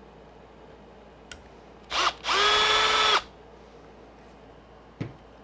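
Milwaukee Fuel cordless driver backing out a screw from an RC truck's plastic chassis: a brief blip about two seconds in, then a run of about a second whose whine rises quickly and then holds steady. A single knock comes near the end.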